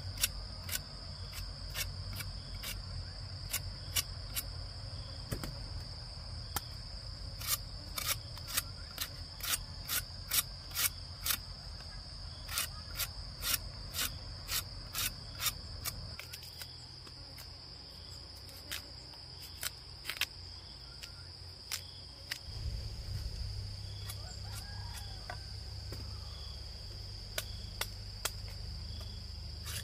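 Steady high-pitched insect drone. Sharp knocks or taps come about two a second through the middle of the stretch, with scattered ones before and after, over a low rumble.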